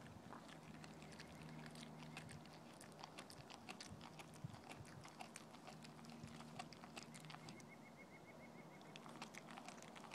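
Dog chewing and gnawing a piece of raw green tripe: a faint, quick, irregular run of small wet clicks from its teeth and jaws working the soft tissue.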